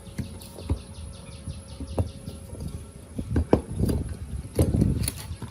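Irregular knocks and clanks of tools on the metal of an old refrigerator compressor, coming thicker in the second half. A faint rapid high trill sounds above them during the first two seconds.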